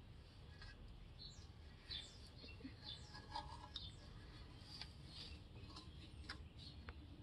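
Near silence, with faint scattered light clicks and a few brief high chirps.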